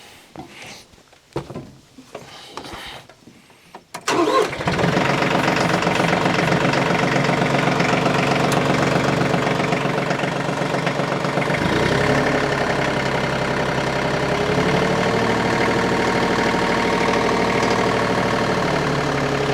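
Faint scattered knocks at first, then about four seconds in the Frontier OS35 portable bandsaw sawmill's engine starts abruptly and runs steadily and loudly. Its note shifts around twelve seconds in and again near fifteen seconds, where a steady higher tone joins it.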